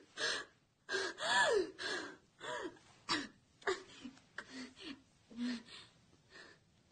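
A woman gasping and whimpering in panicked breaths: a quick run of short voiced gasps that grow shorter and fainter toward the end.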